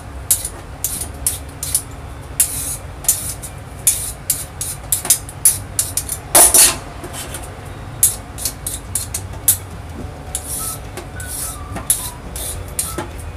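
Vegetable peeler scraping the skin off a Chinese yam (huai shan) in quick, irregular strokes, about two a second, with a longer, louder scrape about halfway through. A low steady hum runs underneath.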